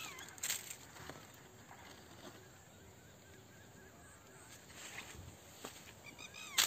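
Quiet outdoor ambience with a few scattered rustles and crunches, and faint wavering animal calls that grow louder right at the end.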